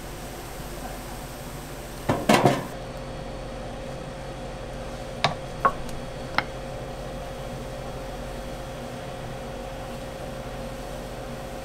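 Wooden crepe spreader knocking against a large round crepe griddle: a short cluster of clattering knocks about two seconds in, then three lighter clicks around five to six seconds in, over a steady kitchen hum.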